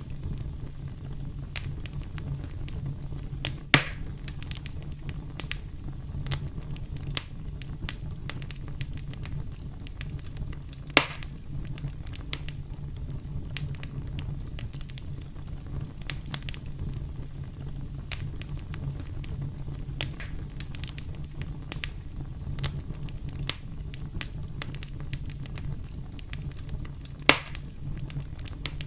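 Campfire crackling steadily, with many small pops over a low rumble and three louder snaps: about four seconds in, near the middle, and near the end.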